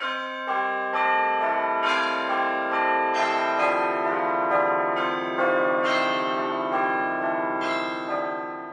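Church bells ringing, struck one after another about every half second to second, each tone ringing on under the next.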